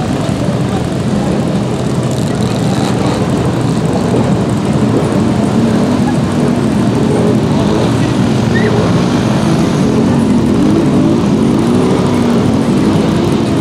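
Side-by-side UTV engines running under heavy load as they wade through deep muddy water, the engine pitch rising and falling repeatedly as the throttle is worked, more so in the second half.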